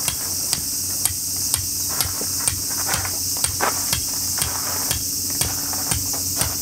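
A tent peg being hammered into the ground: sharp, evenly spaced strikes about twice a second, thinning out after about three and a half seconds. Insects drone steadily behind.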